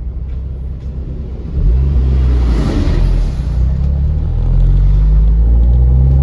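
MG TF's four-cylinder engine pulling away and accelerating, its note rising twice with a gear change between. A vehicle's rush swells past about two and a half seconds in.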